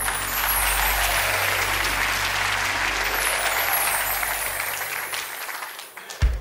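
Studio audience applauding, dying away over the last second, followed by a single sharp low thump near the end.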